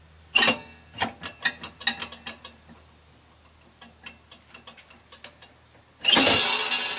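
Metal clicks and knocks as a jukebox record carousel is worked onto its shaft. The clicks come in a quick run, then a few fainter ticks follow, and a loud clattering rattle comes near the end as the carousel goes into place.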